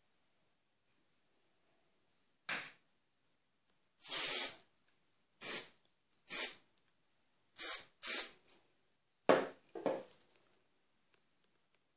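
Aerosol hairspray can sprayed in about eight short hissing bursts, the longest about half a second, with short pauses between.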